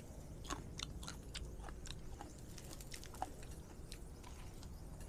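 A person chewing and biting into a lettuce wrap of grilled pork belly, with faint irregular crunches that thin out after about three and a half seconds.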